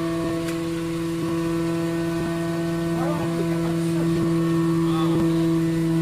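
Hydraulic scrap-metal baler's power unit running with a steady, pitched hum.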